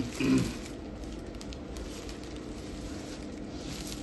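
Faint rustling and crackling of clothing and cloth being handled, with scattered small ticks, over a steady low room hum.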